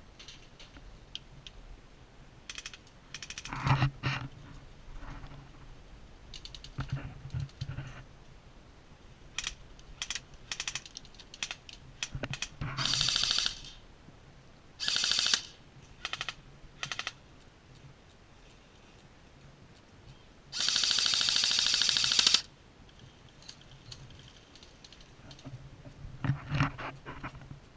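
Airsoft guns firing: scattered single shots and short rapid-fire bursts. The longest burst is a run of about two seconds, about three quarters of the way through.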